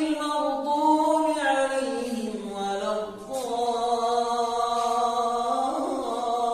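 A man recites the Qur'an unaccompanied in melodic tajweed style, unamplified and with no added effects. His voice holds long drawn-out notes that glide slowly in pitch, with a short pause for breath about three seconds in.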